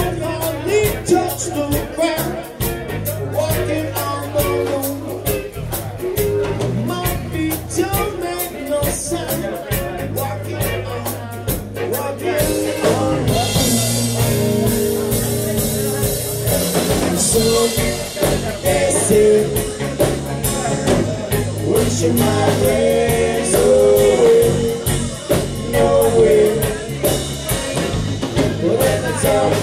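A live band playing a reggae-rock groove on drum kit, bass guitar, electric guitar and keyboard, with a melodic line over the top. The cymbals grow brighter and busier about halfway through.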